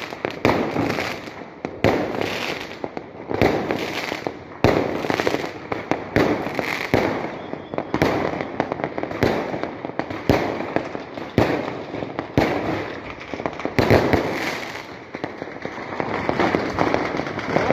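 Fireworks going off in quick succession: a sharp bang about once a second, each followed by a second or so of crackling.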